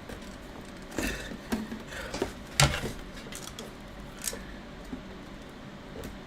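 Scattered clicks, knocks and rustles from handling a box and its contents. The loudest knock comes about two and a half seconds in.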